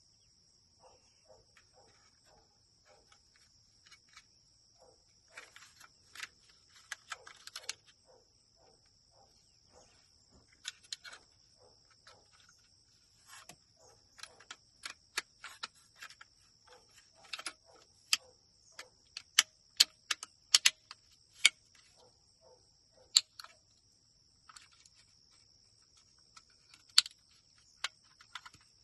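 Irregular light plastic clicks and snaps of a truck's power window switches being handled and fitted into the door switch panel, over a steady high insect trill.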